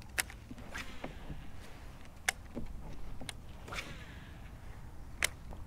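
A baitcasting rod and reel being cast and retrieved: three sharp clicks a couple of seconds apart, with soft swishes between them.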